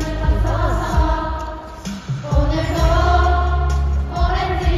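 A large arena crowd singing along together like a choir over loud music with heavy bass; the sound dips briefly about two seconds in, then the singing comes back full.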